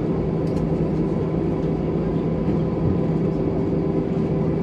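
Airbus A320 cabin noise while taxiing: a steady hum from its IAE V2500 turbofans at low taxi power, several fixed tones over a rumble and a hiss.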